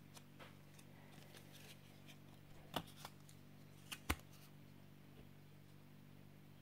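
Quiet handling noise: a scatter of light clicks and rustles, with a sharp click just before the middle and two more about a second later, over a faint steady hum.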